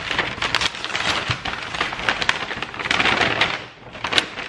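A parcel being opened by hand: its packaging crackles and tears in a dense run of small sharp crinkles, easing off briefly near the end.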